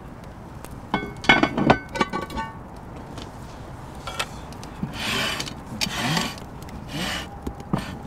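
Metal clinks with a ringing tone about a second in, then several rough scrapes: a cast iron Dutch oven's bail handle and lid being handled and the pot shifted on the stone floor of a wood-fired oven.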